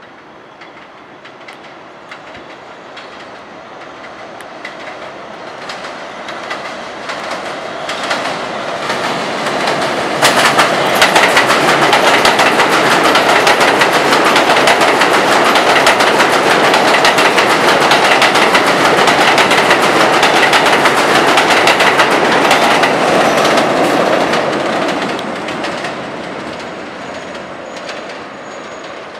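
New York City subway train on the Culver Line's elevated tracks, approaching and then running past loud, with a rapid clack of wheels over rail joints, before fading away near the end.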